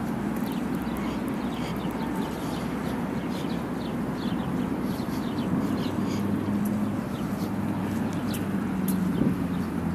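A steady low engine hum, with small birds chirping many times in quick short calls over it.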